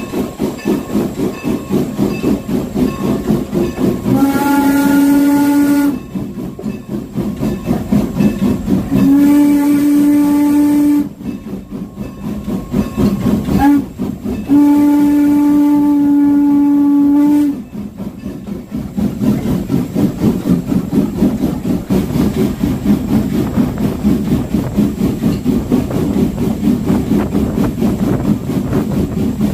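Steam whistle of Norfolk & Western No. 475, a 4-8-0 steam locomotive, sounding the grade-crossing signal: two long blasts, a short one, and a final long one. Under and after the whistle the moving train keeps up a steady rhythmic chuffing and rumbling.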